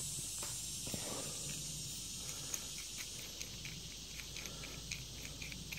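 Quiet handling of a new ball joint: faint small ticks and taps as its castle nut is turned off the threaded stud, over a steady high hiss.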